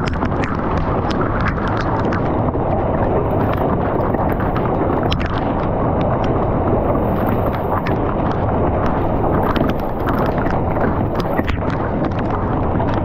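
Storm wind buffeting the GoPro's microphone in a loud, steady rush, with pea- to quarter-size hailstones hitting the ground and the camera in an irregular patter of sharp clicks.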